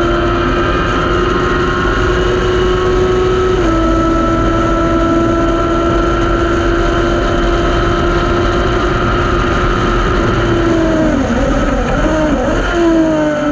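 Race-car engine heard from the open cockpit of a Thunder Roadster, held at high, nearly steady revs down a straight with a small dip in pitch early on. About eleven seconds in the revs fall and jump up and down, then fall steadily, as the car slows for the corner.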